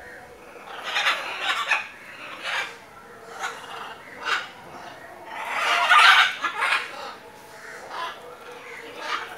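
Macaws squawking: a string of short, harsh calls, with a longer and louder one about six seconds in.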